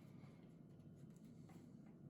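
Near silence: faint room tone with a steady low hum and a couple of faint light clicks near the end.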